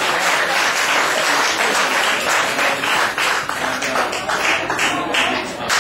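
Audience applauding after a live band's song, the clapping thinning out about halfway through.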